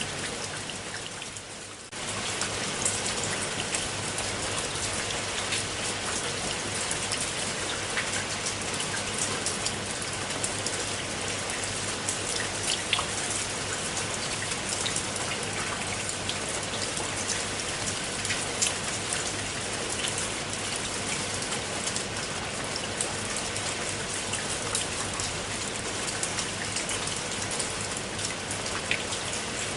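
Rain falling on a pool of water: a dense, steady patter with many separate drops ticking through it. It dips quieter briefly and comes back abruptly about two seconds in.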